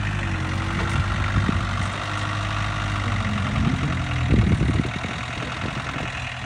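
Engine of a truck-mounted forklift running at idle with a steady low hum. About three and a half seconds in it picks up, with a short rise in pitch and a louder rattle for about a second before settling back.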